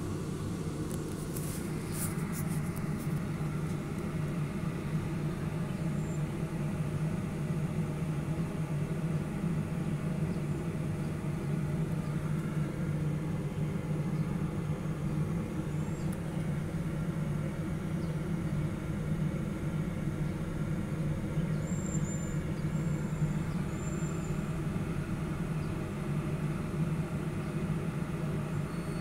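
A steady low mechanical drone, an even hum with overtones that holds unchanged throughout, with a few faint clicks near the start.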